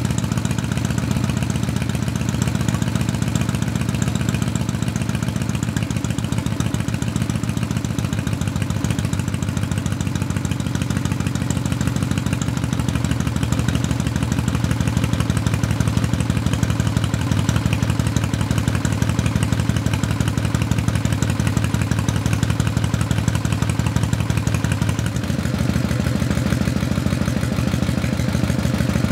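1957 Harley-Davidson Panhead V-twin idling steadily through its vintage exhaust, a low, deep note with the loping three-beat idle of an old Harley.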